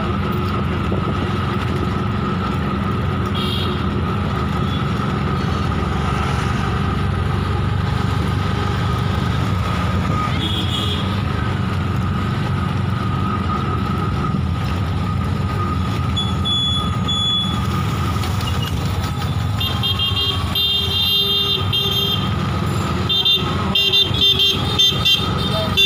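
Road vehicle running steadily with a constant whine, with vehicle horns honking several times in the second half, in short repeated beeps near the end.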